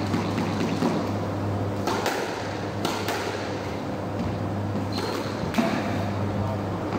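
Squash rally: the ball knocked by rackets and smacking the court walls at an uneven pace, with a brief high squeak of a shoe on the wooden floor about five seconds in, over a steady low hum.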